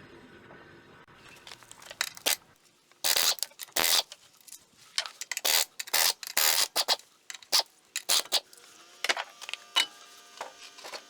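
Sharp metallic clinks and scrapes of hand tools and metal parts being handled while working on a front wheel hub. They start about two seconds in, come thick and fast for several seconds, then thin out near the end.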